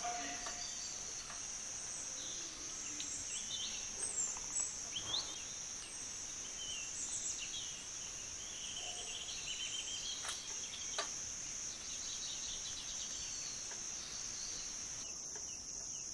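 Insects trilling steadily in one continuous high-pitched drone, with a few faint chirps and clicks scattered over it.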